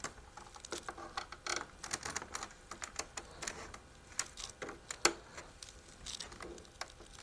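Irregular plastic clicks, creaks and snaps from a computer monitor's plastic casing being pried and pushed apart at its edge, its snap-in clips letting go. The sharpest snap comes about five seconds in.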